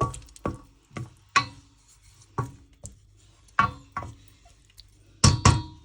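A cooking utensil stirring chicken and water in a pan, knocking against the pan's sides about a dozen times at an irregular pace, each knock ringing briefly.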